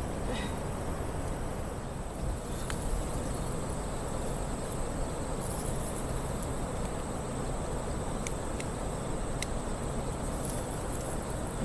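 Steady outdoor noise of flowing river water and wind on the microphone, with a constant thin high-pitched whine and a few faint clicks.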